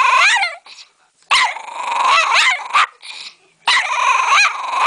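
Dog giving three long, harsh, wavering bark-growls in a row, its way of protesting and talking back.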